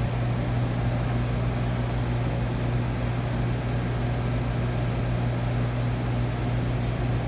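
Steady low electrical hum with a constant whir of running shop equipment, unchanging throughout.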